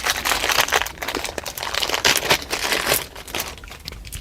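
Packaging crinkling and rustling as it is handled. The crackle is dense for the first three seconds, then turns to lighter handling noise.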